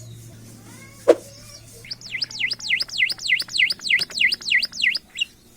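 A pet talking bird whistling a quick run of about ten sweeping notes, each swooping down and back up, roughly three a second. A sharp click comes about a second in, before the whistling starts.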